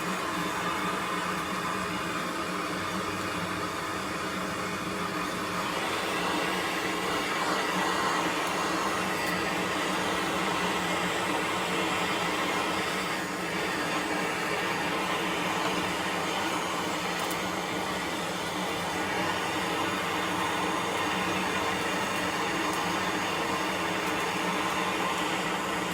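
Steady mechanical whir with a low humming drone under a rushing, airy noise, as while the fire-pit fire is being started and built up. It grows fuller and slightly louder about six seconds in.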